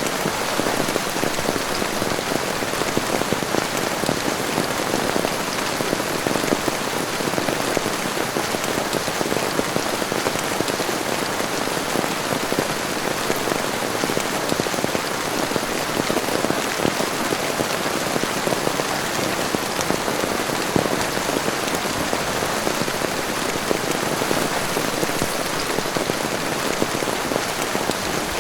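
Heavy rain falling steadily: a dense, even patter of drops with no break.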